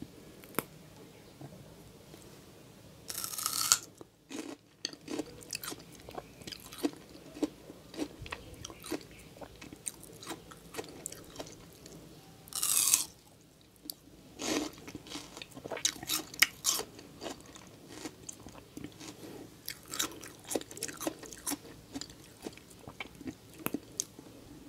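Close-miked eating of raw kamias (bilimbi) fruit. Two loud, crisp bites come about three seconds in and again about twelve seconds in, each followed by a run of crunching and chewing clicks.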